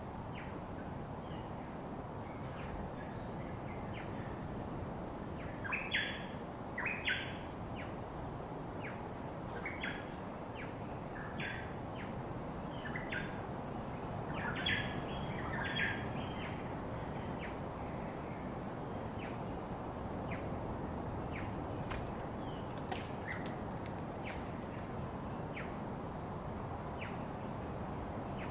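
Wild birds calling in short chirps, in clusters during the first half and more scattered later, over a steady rushing background noise and a constant thin high tone.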